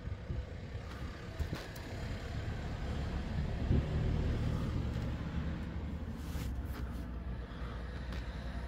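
Low, steady rumbling background noise inside a parked car, with a few light clicks as a laptop is worked through its menus.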